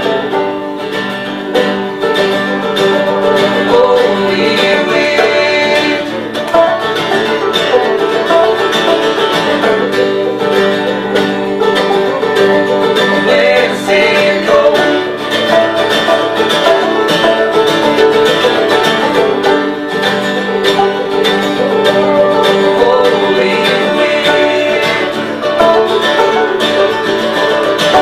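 Live acoustic band playing an instrumental break of a country-folk song, with plucked strings picked in a steady, busy rhythm.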